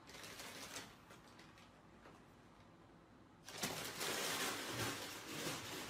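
Faint paper rustling and light scraping clicks from a paper bag dragged over a wooden floor by a cat with its head stuck inside, with louder rustling starting about three and a half seconds in.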